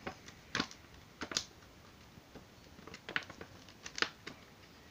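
Clear plastic packaging crinkling and clicking as it is handled and yarn is pushed through a small slot cut in it: a handful of short, separate crackles.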